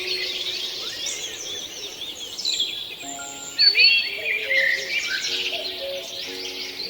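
A chorus of many songbirds chirping and singing, dense overlapping short whistled calls, with a loud burst of calls about three and a half seconds in. Soft background music of long held notes runs underneath.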